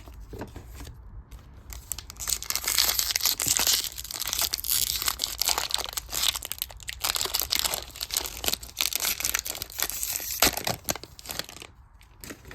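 Trading-card pack wrapper being torn open and crinkled: a dense crackling and rustling that starts about two seconds in and stops shortly before the end.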